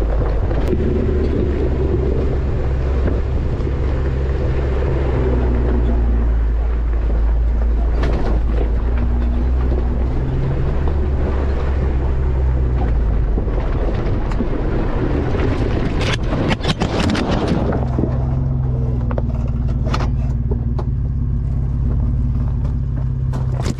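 Four-wheel-drive vehicle's engine running at low speed while it crawls over a rocky trail, with tyres crunching on loose rock. A cluster of knocks and scrapes comes about 16 seconds in, and more near the end as a bush strikes the door-mounted camera and knocks it loose.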